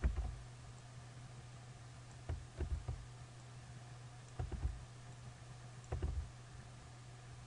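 Computer keyboard and mouse clicks in four short clusters about every two seconds, as words are selected and pasted over while editing code. A steady low hum runs underneath.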